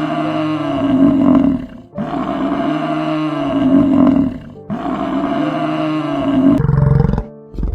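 Big cat roaring three times, each roar about two seconds long and rising then falling in pitch, followed by a low rumble near the end.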